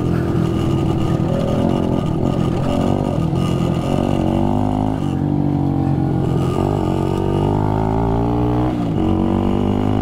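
1965 Yamaha YG5 Trail Master's 72cc two-stroke single-cylinder engine running as the bike is ridden. The engine note holds steady and shifts in pitch a few times, about five seconds in and again near the end, as revs change.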